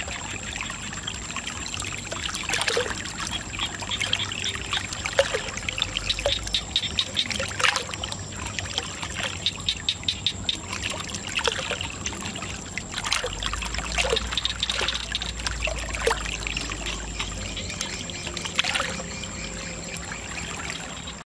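Water pouring from two plastic pipes into a pool of muddy water, splashing and trickling, with many small drips and splashes.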